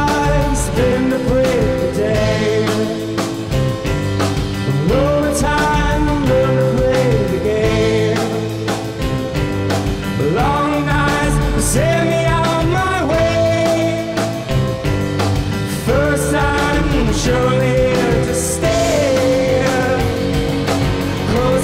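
Live rock band playing: a man singing lead over electric guitar, bass guitar and a drum kit with cymbals.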